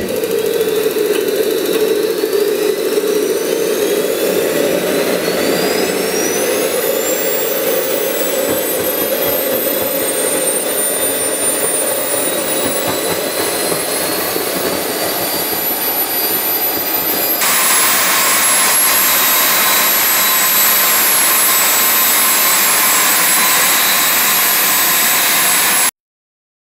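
Small RC model jet turbine starting up: a high whine rises steeply over the first several seconds as it spools up, then holds steady. About two-thirds through it suddenly gets louder, and it cuts off abruptly near the end.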